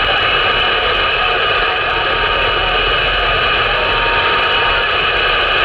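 Steady hiss and static from a mobile CB radio's speaker on 27 MHz upper sideband, with no station coming through, and a few faint steady whistles mixed in. The band is noisy, which the operator puts down to local interference in traffic.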